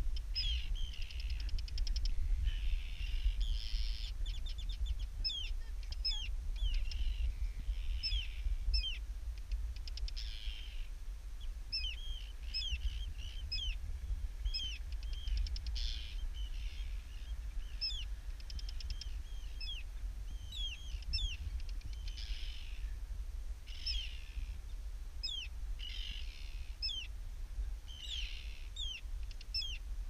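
Arctic terns give alarm calls as they mob people on the ground. Short, sharp, hooked calls come in quick succession, mixed with longer harsh rasping cries and a few quick rattles, over a steady low rumble of wind on the microphone.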